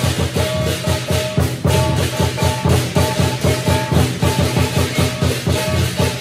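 Instrumental music with a quick, even percussion beat under held melody notes.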